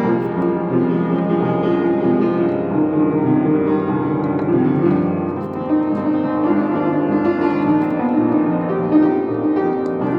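Classical piano music, an unbroken flow of sustained notes and chords.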